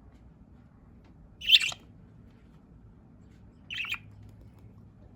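Pet budgerigar giving two short, harsh chirping squawks, the first louder, about two seconds apart.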